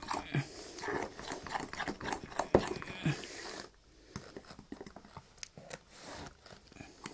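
Thick pancake batter, with only about half its milk in, being beaten by hand in a bowl: irregular clicks and scrapes of the utensil against the bowl. The beating gets quieter after about three and a half seconds.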